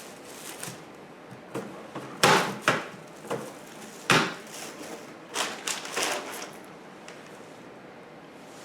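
Irregular knocks and clunks of the mower and its packaging being handled, with the loudest ones a little after two seconds and about four seconds in.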